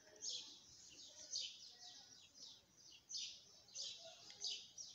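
A bird chirping faintly: a steady run of short, high, falling chirps, two or three a second.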